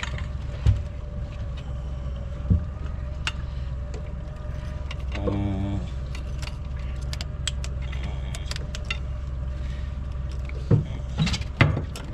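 Boat motor running steadily under scattered metallic clicks, jingles and knocks, most of them near the end, with a short pitched sound about five seconds in.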